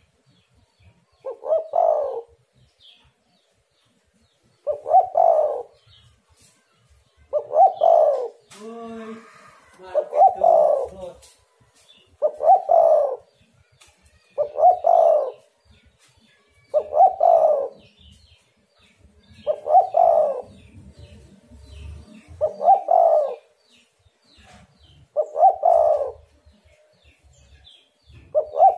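Spotted dove cooing: a short phrase of coos about a second long, repeated steadily about every two and a half seconds.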